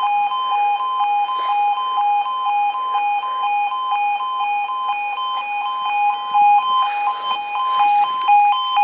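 Railway level crossing's two-tone audible warning alarm sounding steadily, alternating between a lower and a higher tone about two and a half times a second, warning that the crossing is closing for a train.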